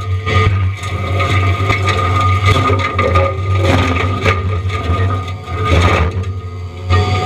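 Forestry mulcher head on a John Deere 333E compact track loader grinding pine wood: the loader's engine drones steadily under load with a constant whine, while the mulching drum crunches and scrapes irregularly as it chews the timber.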